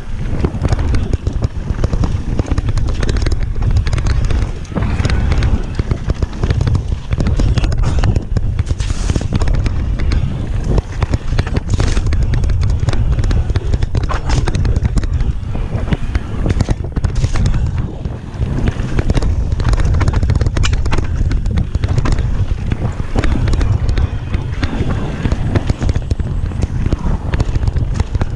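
Heavy wind buffeting on the microphone as a Trek Powerfly 7 electric mountain bike rides fast down a gravel trail, with its tyres running over the loose surface and frequent rattles and knocks from bumps.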